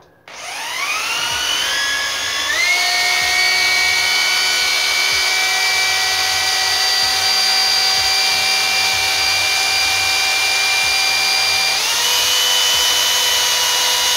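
Electric drill fitted with a small sanding disc, sanding a wooden lure blank: its motor whine climbs in steps over the first couple of seconds, runs steadily, then steps up in pitch again shortly before the end.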